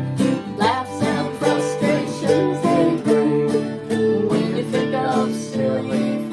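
Instrumental break in an acoustic country-gospel song: plucked guitar and other string instruments playing over a steady beat.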